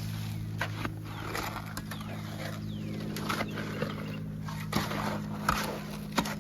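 A steady low motor hum, with scattered short scrapes and knocks of hand tools working wet concrete.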